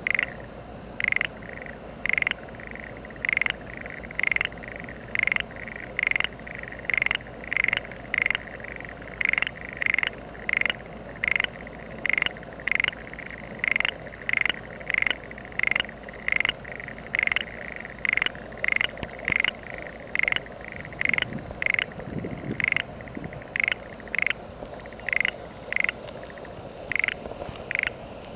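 A frog calling over and over: short, loud croaks at about one and a half a second, kept up steadily.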